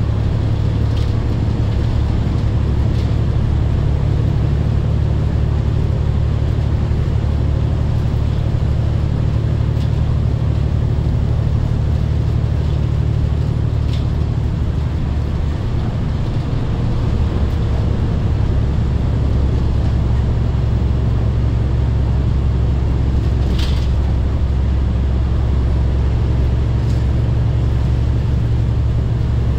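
Diesel engine of a Daewoo BS106 city bus droning steadily under way, heard from inside the cabin, with road and tyre noise; the engine note shifts a little past halfway, and a few faint ticks or rattles come and go.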